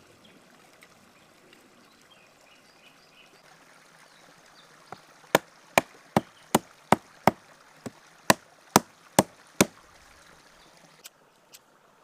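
Small hatchet chopping thin kindling sticks off a dry, weathered log: about a dozen sharp blows, roughly two or three a second, starting about five seconds in. Two lighter clicks follow near the end.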